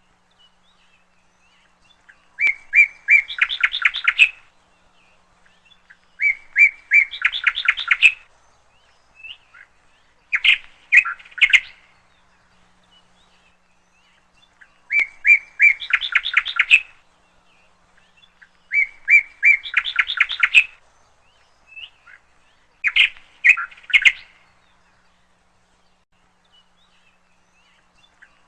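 A songbird singing the same song over and over, about every four seconds: a few clear opening notes followed by a fast run of notes, six songs in all.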